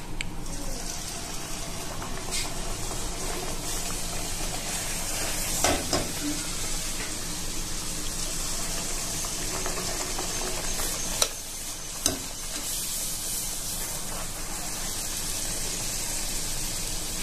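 Palm-fruit luchi (puffed wheat flatbread) deep-frying in hot oil in an aluminium kadai: a steady hiss and sizzle. Three brief knocks come in the middle, the last two close together.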